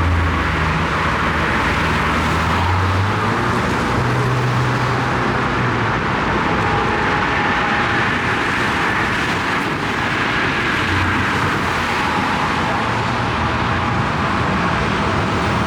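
Heavy construction machinery running steadily, its engine note shifting in pitch now and then under a broad, even noise.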